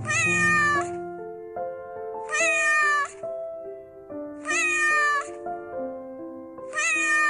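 A domestic cat meowing four times, about two seconds apart, each meow short and alike, over light background music.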